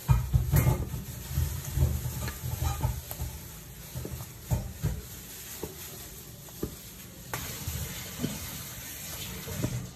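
Kitchen handling sounds: irregular soft knocks and rustling as leafy vegetables and small round eggplants are put into a pot of water, over a steady faint hiss.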